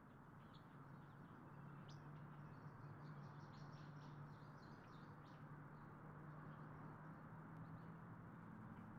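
Faint birds chirping, scattered short calls mostly in the first half, over quiet room tone with a low steady hum.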